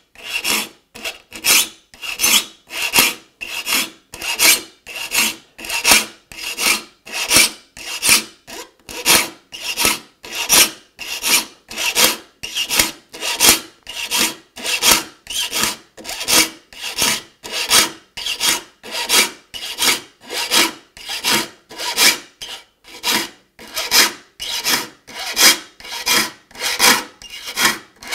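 Saw file rasping across the steel teeth of a handsaw in steady, even strokes, about two a second, sharpening the teeth for a rip cut.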